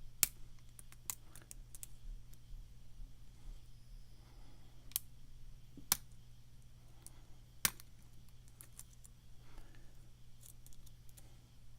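Lock pick and tensioner working the pins of a pin-tumbler challenge lock: scattered light clicks and ticks of metal on metal, with a few sharper clicks standing out as pins are pushed and set.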